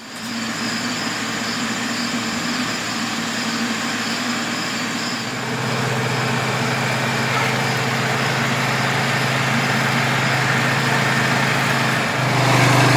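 An engine running steadily with a low, even drone. It gets louder about five seconds in and rises slightly in pitch near the end.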